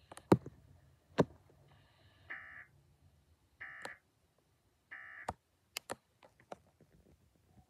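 Emergency Alert System end-of-message code: three short bursts of buzzing digital data tones about a second and a quarter apart, signalling the end of the test. Sharp clicks sound throughout, the two loudest in the first second or so.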